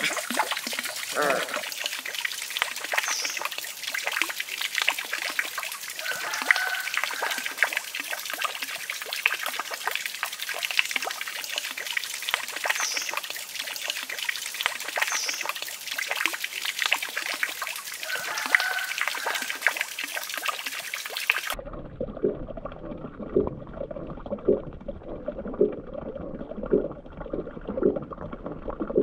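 Water trickling and splashing into a small fish pond, with puppies' short high whimpers now and then. About 21 seconds in it changes abruptly to a muffled underwater sound with regular bubbling pops, roughly one or two a second.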